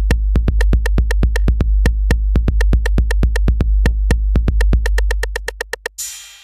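Electronic music: rapid, evenly spaced ticking percussion over a steady deep bass note. The bass fades out about five seconds in, and a short burst of hiss comes near the end.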